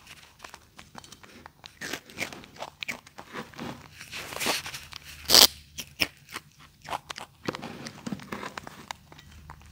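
Baby macaque biting and chewing crispy snack crackers: irregular crisp crunches, the loudest about five and a half seconds in.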